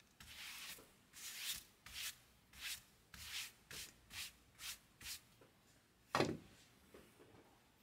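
Repeated short rubbing or scraping strokes, about two a second, then a single louder thump about six seconds in.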